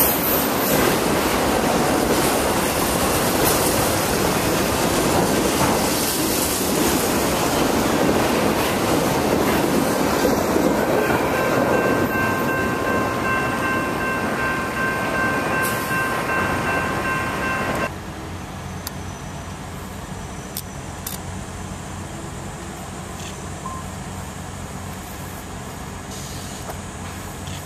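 Freight train of autorack cars rolling past, a steady rumble and rattle of wheels on rail. A steady high whine joins in for several seconds, and then the sound cuts off suddenly to a much quieter background.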